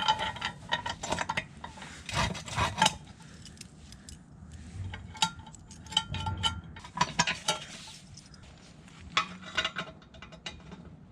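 Irregular metallic clinks and light taps, in clusters with short gaps, as steel concrete anchor studs are handled and set into drilled holes in concrete.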